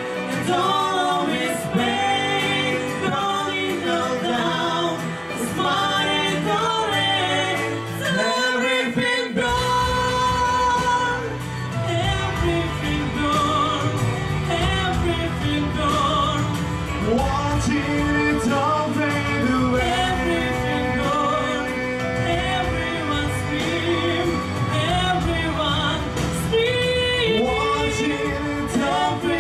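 A man and a woman singing a duet into microphones over backing music, with held notes and vibrato. The deep bass of the backing drops out for a moment about eight seconds in, then comes back fuller.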